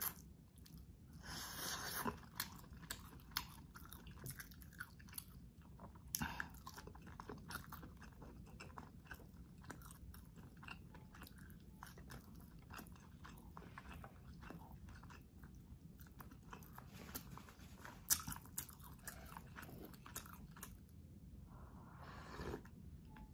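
Close-miked eating: chewing and biting with many short crunchy clicks and wet mouth sounds. Near the end comes a denser stretch of noise as sauce is sipped from the rim of a glass bowl.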